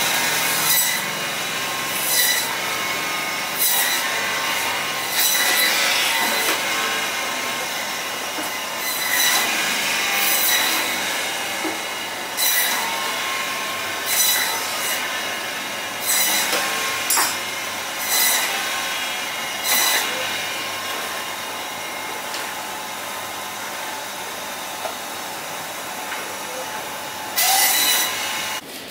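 Meat bandsaw running with a steady high whine, broken by a short harsh rasp every second or two as pieces of lamb are pushed through the blade. The rasps stop for several seconds after about twenty seconds, then one last loud cut comes near the end.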